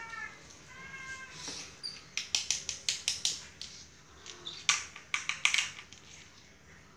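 A kitten gives two short meows in the first second or so. Then comes a run of sharp taps and clicks, a wooden stick knocking on the tile floor, loudest about five seconds in.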